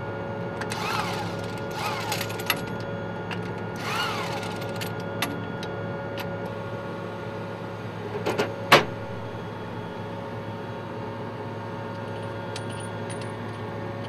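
Power wrench working the hub nuts of a tank road wheel. It runs in three short bursts that rise and fall in pitch in the first four seconds, over a steady mechanical drone. A sharp metallic clank comes about eight and a half seconds in.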